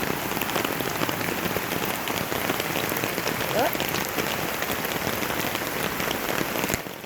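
Heavy rain falling steadily, a dense hiss of countless drop impacts, briefly quieter near the end.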